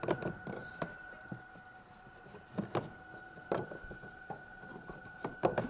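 Scattered plastic clicks and knocks as the cabin air filter housing on a BMW X5 is worked loose by hand, several sharp taps spread over the seconds.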